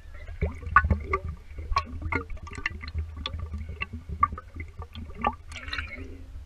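Whiskey gurgling and sloshing in a bottle as someone drinks from it, with irregular knocks from the bottle being handled.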